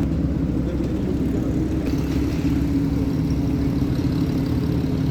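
An engine running steadily at idle: a continuous low rumble with a steady hum.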